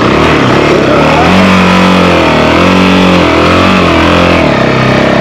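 Honda CRF450L's single-cylinder four-stroke engine revving up and down under throttle as the bike is ridden over a rough, rutted dirt section, its pitch rising and falling several times.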